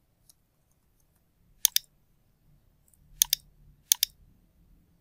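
Computer mouse button clicking three times, each click a sharp press-and-release pair: about a second and a half in, a little after three seconds, and at about four seconds. A very faint tick sounds near the start.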